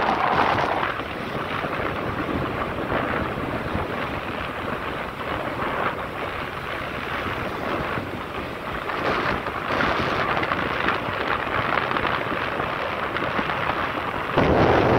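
Wind rushing over the microphone of a moving motorcycle, with the bike's engine and tyre noise underneath. The rush eases about a second in and gets louder again near the end.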